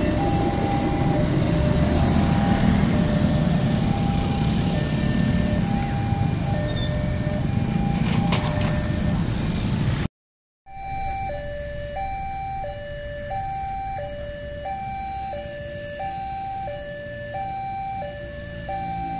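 Level-crossing warning alarm sounding a two-tone signal that alternates high and low about once a second, while a train's passenger coaches run past with loud rumble and wheel noise. After a sudden cut about ten seconds in, the two-tone crossing alarm carries on alone, quieter and with no train passing.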